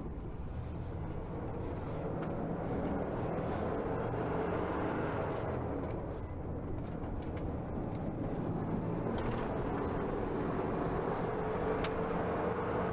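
Pickup truck driving at a steady speed: an even engine hum and road noise.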